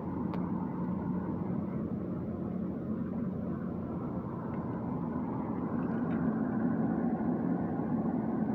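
Steady engine hum and road noise of a car heard from inside while driving, growing a little louder and higher about six seconds in.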